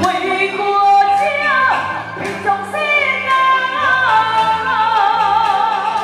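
Taiwanese opera (gezaixi) singing in a woman's voice through a handheld microphone and PA. Held notes glide from one pitch to the next, with a wavering vibrato in the second half, over instrumental accompaniment.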